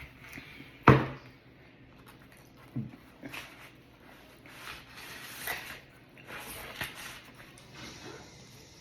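A sharp knock about a second in, then a smaller click and a few seconds of rustling handling noises.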